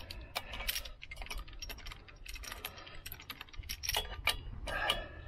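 Irregular metallic clicks and clinks of a wrench working bolts and nuts on a steel bracket, with hardware rattling against the metal as the bracket is tightened onto the tractor's upright post.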